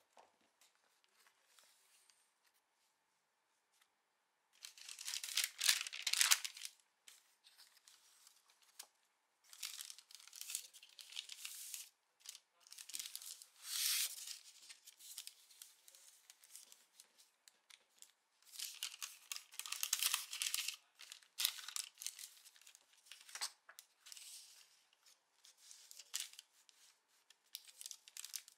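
Paper rustling and crinkling as a large sheet of calligraphy paper is handled and folded around a stack of prints, in repeated bursts a second or two long with quiet gaps between, starting about four seconds in.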